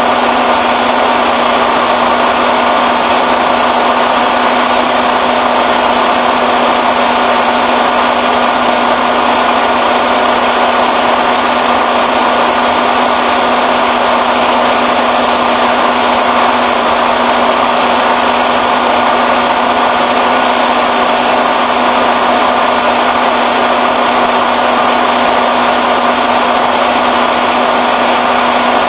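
Loud, steady machine drone with a few constant hum tones, unchanging throughout.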